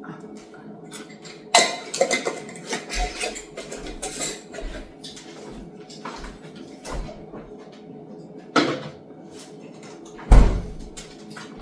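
Kitchen handling noises: a string of sharp clicks, knocks and clatters of a glass jar and utensils, the loudest about ten seconds in.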